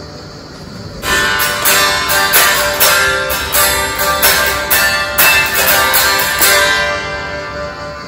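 Unplugged 2010 Gibson SG Standard electric guitar heard acoustically: a chord ringing out and fading, then from about a second in a run of strummed chords, about two a second. The guitar is fitted with a Halon titanium tailpiece for these strums.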